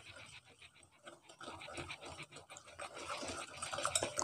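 Wire whisk beating softened butter and icing sugar in a glass bowl: faint, quick, rhythmic scraping strokes, getting a little louder after the first second or so.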